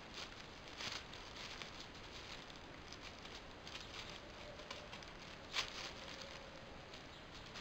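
Thin plastic carrier bag crinkling and rustling in irregular bursts as a kitten paws and bites at it, with one sharper crackle about three quarters of the way through.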